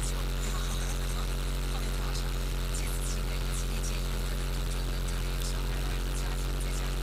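Mercedes-Benz SLS AMG's V8 idling steadily, heard as a low, even hum from inside the cabin.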